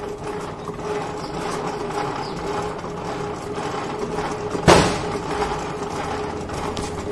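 Spanner working the rear wheel nut of a TVS Wego scooter loose: metal clicking and scraping over a steady hum, with one loud metallic knock about two-thirds of the way through.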